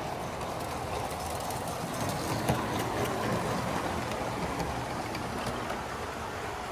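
Model train rolling along the layout track, a steady rumble and rattle of its wheels that swells in the middle as the gondola cars pass close by, with a sharp click about two and a half seconds in.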